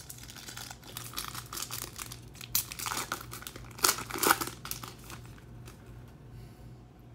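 Foil trading-card pack wrapper torn open by hand and crinkled: a run of crackles, the two loudest a little before and after four seconds in, dying down after about five seconds.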